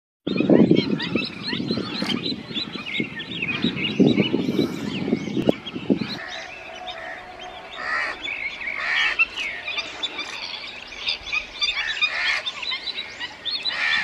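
A chorus of many small birds chirping and singing. For about the first six seconds it sits over a louder, low-pitched calling.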